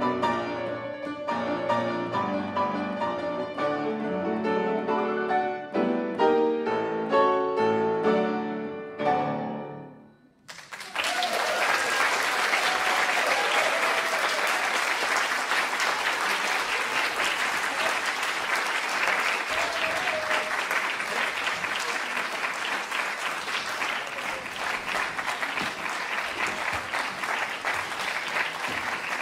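Two grand pianos playing the closing bars of a classical piano piece, the last chord dying away about ten seconds in. Sustained audience applause follows.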